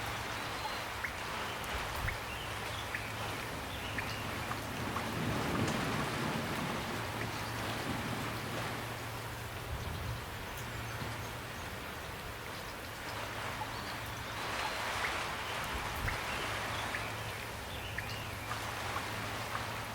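Steady, gentle rain falling, with individual drops ticking and the patter swelling slightly twice.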